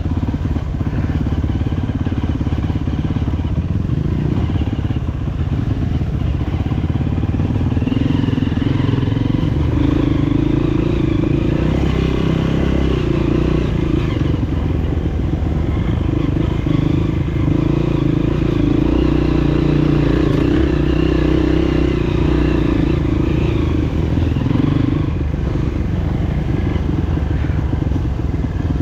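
Honda CRF230F trail bike's single-cylinder four-stroke engine running steadily while riding, pulling harder through the middle stretch and easing near the end.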